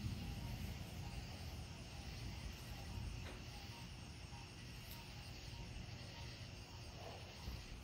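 Night ambience: a low rumble that fades over the first second or so, over steady insect chirping.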